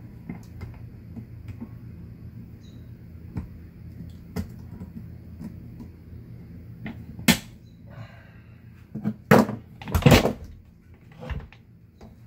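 Pliers and small metal parts being handled: scattered light clicks and taps, with a few louder knocks about seven, nine and ten seconds in.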